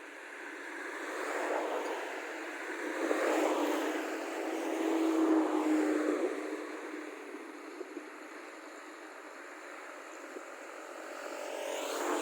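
Rice combine harvester's engine running, with a steady hum that swells louder over the first few seconds, eases off, and swells again near the end, as if moving past.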